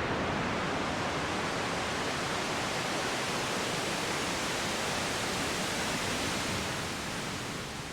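Synthesized ocean-wave sound from a VCV Rack patch: filtered noise from a noise generator, a steady wash of noise that begins to fade out near the end.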